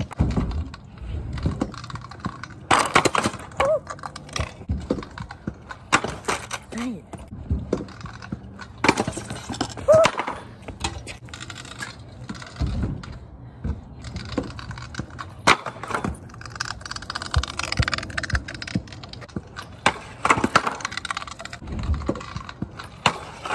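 Skateboard on a concrete driveway: wheels rolling and a series of sharp board clacks, pops and landings at irregular intervals, with a few short grunts or exclamations.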